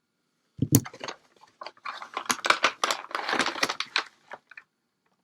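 A miniatures booster box's packaging being opened and handled: a knock about a second in, then a run of crinkling and rustling clicks that stops near the end.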